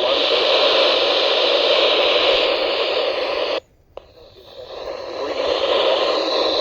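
Weather radio receiver hissing with static from a weak, noisy signal. The hiss cuts out abruptly about halfway through, then fades back up over a couple of seconds.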